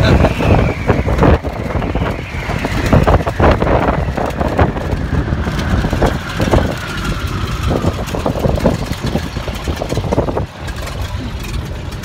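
Open-cockpit biplane's engine and propeller running, with heavy wind buffeting on the microphone. The engine note falls slowly throughout, and the overall noise drops somewhat near the end.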